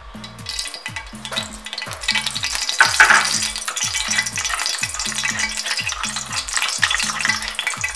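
Cooking oil crackling and sizzling as it heats in a hot aluminium caldero, just poured in. The crackle builds over the first few seconds, over background music with a repeating bass line.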